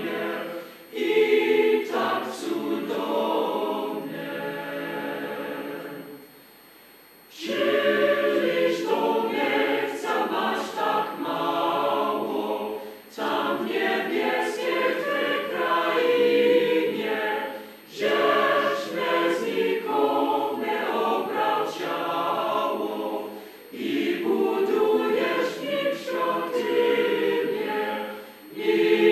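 A mixed choir of men's and women's voices singing a hymn a cappella in parts. The phrases stop for about a second roughly six seconds in, with shorter breaks between the later phrases.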